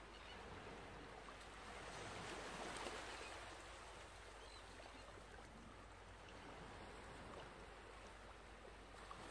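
Near silence: a faint steady hiss of room noise, swelling slightly about two to three seconds in.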